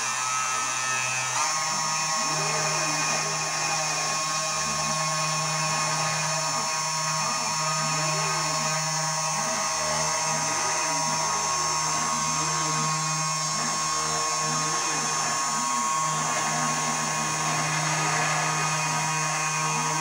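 Ortur Aufero desktop CNC engraver routing a wooden board: the spindle motor whines steadily as the bit cuts, while the stepper motors give repeated rising-and-falling whirs as the head moves. A little over a second in, the whine steps up in pitch.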